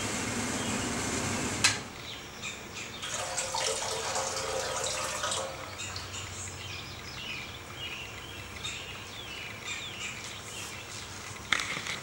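A steady rushing hiss cuts off with a click about two seconds in. After that, wort runnings trickle from a cooler mash tun's valve into a keg while birds chirp.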